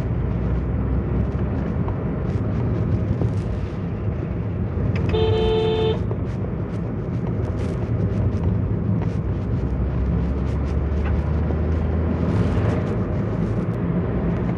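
Engine and road noise inside a moving car's cabin, a steady low drone, with a vehicle horn honking once for about a second around five seconds in.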